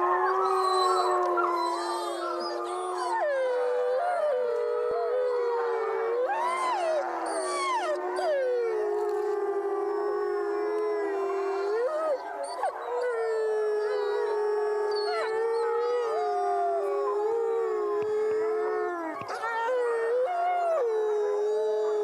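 A pack of wolves howling together in chorus: several long overlapping howls, held steady with swoops up and down in pitch as voices join and break off.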